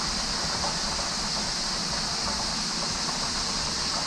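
Battered crappie fillets deep-frying in hot grease in pans on the stove, sizzling steadily with no break.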